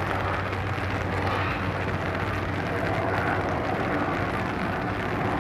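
Steady outdoor rumble of distant city traffic with light rain falling on a lake, a continuous low hum under an even hiss.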